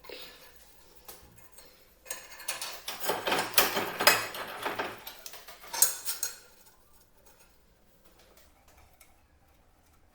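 Clinking and clattering of hard objects being handled, a dense run of sharp knocks from about two seconds in to six and a half, then only faint sound.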